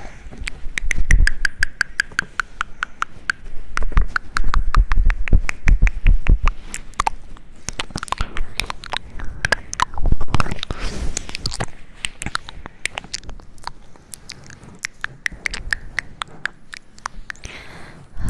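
Rapid, irregular run of sharp clicks and crackles, with low thumps now and then.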